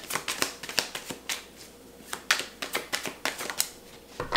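A deck of oracle cards being shuffled by hand: a quick, irregular run of card clicks and flicks, then one louder snap near the end.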